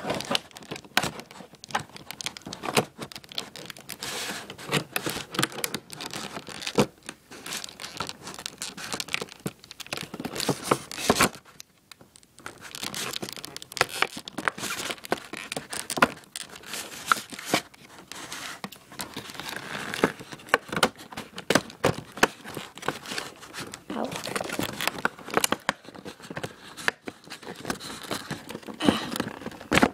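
Clear plastic packaging crinkling and tearing as it is opened, in irregular crackles with a short pause about eleven seconds in.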